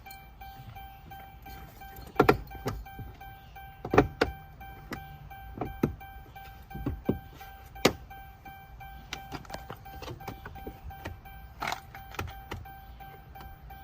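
Irregular knocks and clicks of hard plastic car door trim and clips being handled and pushed into place, the loudest about two, four and eight seconds in, over a steady high-pitched hum.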